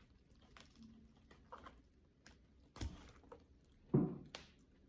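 A person chewing and smacking while eating fish, with scattered short clicks. The loudest smacks come about three and four seconds in.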